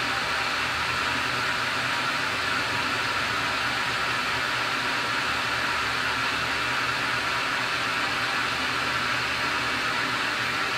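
Tormach 15L slant-bed CNC lathe running with its spindle turning: a steady whir and hiss that does not change.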